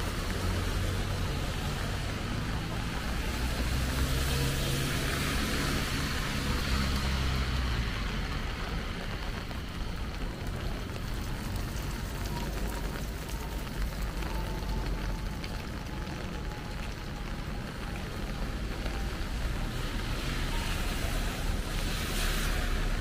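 Cars driving past on a rain-wet road, their tyres hissing through the water with a low engine hum; one passes a few seconds in and another near the end.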